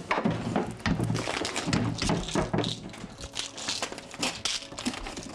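Clicking, knocking and crinkling as plastic prescription pill bottles and packets are rummaged through and handled on a shelf.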